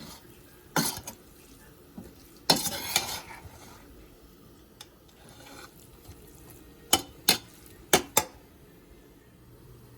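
A utensil knocking and scraping against a pot as stir-fried chicken and noodles are mixed together. There is a sharp clack about a second in, a longer scraping clatter around two and a half seconds, then two pairs of quick clacks near the end.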